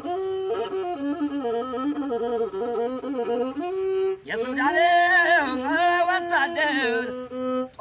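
Ethiopian azmari music: a masinko, the one-string bowed fiddle, playing a wavering, ornamented melody that grows louder and fuller about four seconds in.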